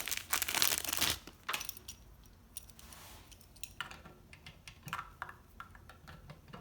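Plastic packaging crinkling for about a second, then a run of small metallic clicks and jingles as the safe's emergency keys are handled.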